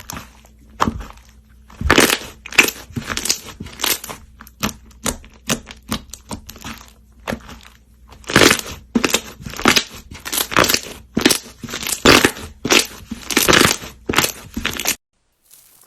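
Crunchy slime being squeezed and pressed by hand: a run of irregular crackling crunches, several a second, that stops abruptly near the end.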